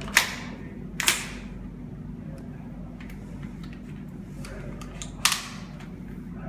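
Three sharp clacks from a VFC Mk18 Mod1 gas-blowback airsoft rifle's action, each echoing briefly: one at the start, one about a second in, and one about five seconds in.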